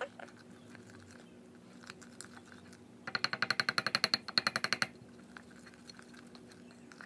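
Spoon stirring thick mug-cake batter in a ceramic mug: faint scraping, then for about two seconds in the middle a fast run of ringing clinks of the spoon against the mug wall, around a dozen a second.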